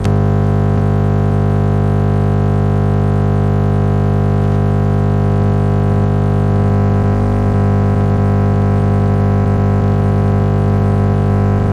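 Loud, steady buzz with many overtones from an FM car radio tuned to 89.8 MHz, starting with a click. It is interference from a switching power supply's chopping, which has completely overwhelmed the transmitter's stereo encoder.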